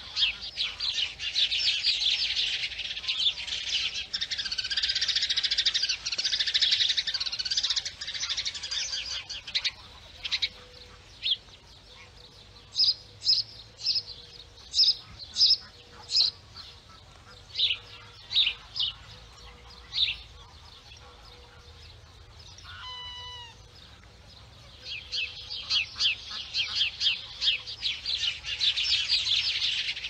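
Many small birds chirping together in a busy chorus, which thins to scattered single chirps about ten seconds in and swells again near the end. About two-thirds of the way through, a single short honk-like call from a waterfowl stands out.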